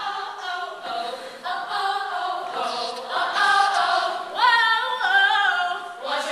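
Female a cappella group singing in close harmony with no instruments. About four and a half seconds in, the voices slide up into a louder, higher passage.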